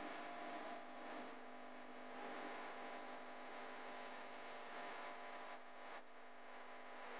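A faint, steady hum made of several held tones, with no sharp events.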